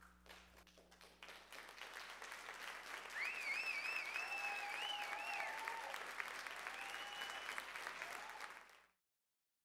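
Theatre audience applauding, the clapping building over the first few seconds, with a high wavering whistle-like call and a lower shout from the crowd in the middle. The applause cuts off abruptly near the end.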